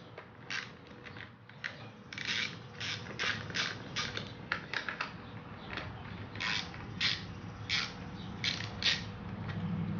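Ratchet wrench with an 8mm socket clicking in short, irregular runs as the carburetor mounting nuts are undone. A low hum comes in near the end.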